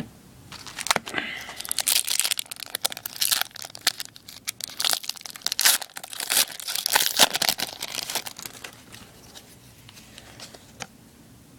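Hockey card pack wrapper being torn open and crinkled by hand, a run of irregular crackles that dies down near the end.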